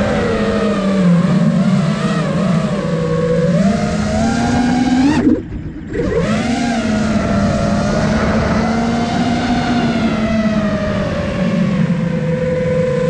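iFlight Nazgul Evoque F5 five-inch FPV quadcopter's brushless motors and propellers whining, heard from the camera on board. The pitch climbs over the first five seconds, the motor sound drops away for about half a second, then spools back up and holds a steady whine that wavers with throttle.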